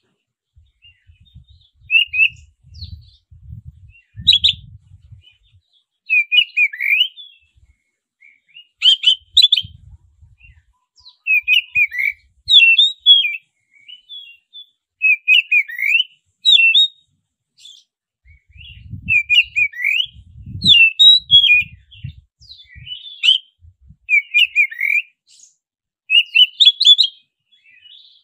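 Oriental magpie-robin (black-breasted kacer) singing: short, loud phrases of quick chirps and whistles repeated every one to two seconds, the kind of song played as a lure to set other magpie-robins singing. A faint low rumble sits under the song twice.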